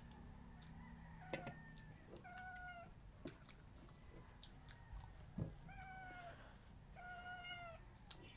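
A cat meowing four times, short level-pitched meows of about half a second each, among faint clicks and taps of eating utensils on plates.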